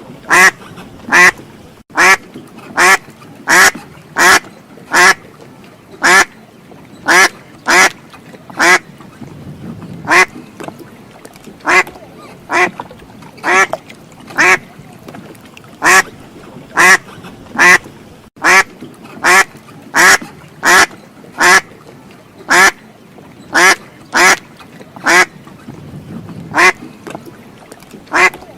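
Duck quacking repeatedly, about one loud, short quack a second at an uneven pace, sometimes two or three in quick succession.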